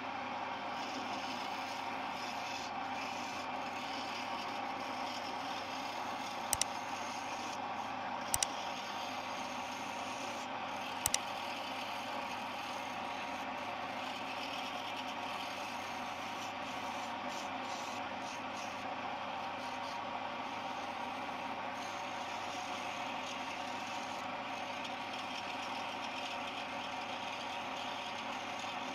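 Homemade wood lathe running while a hand-held turning chisel scrapes and cuts a spinning wooden blank for a file handle: a steady motor and cutting noise. Three sharp clicks come about six, eight and eleven seconds in.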